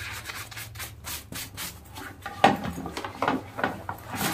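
A sponge with shampoo scrubbing a bag: a quick run of rubbing strokes, several a second, growing louder about halfway through.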